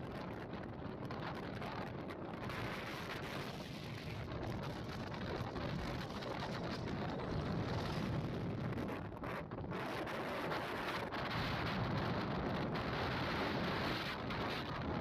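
Wind rushing over the microphone with road and engine noise from a TVS Raider 125 motorcycle riding at highway speed, growing louder about halfway through.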